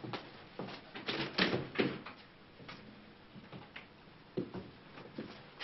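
Footsteps on a hard hallway floor, about two a second, then a few louder clicks and knocks of a door being unlatched and opened.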